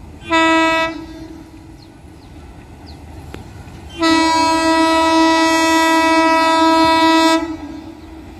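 Horn of an approaching Indian Railways electric locomotive: one short blast, then a long steady blast of about three and a half seconds starting about four seconds in.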